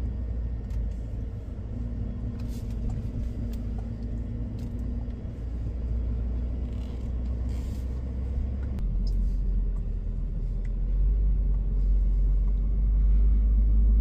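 Ford F-450 pickup truck running as it pulls away towing a travel trailer, heard from inside the cab: a steady low rumble. Its low note changes about two-thirds of the way through, and it grows louder over the last few seconds.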